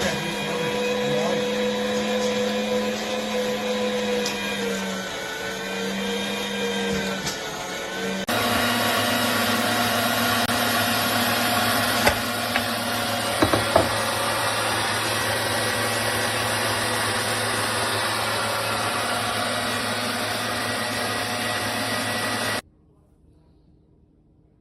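Sunmile electric meat grinder motor running with a steady hum, its pitch wavering and sagging briefly about five seconds in. Partway through it changes abruptly to a steadier, lower, slightly louder hum with a few sharp clicks. It cuts off suddenly near the end.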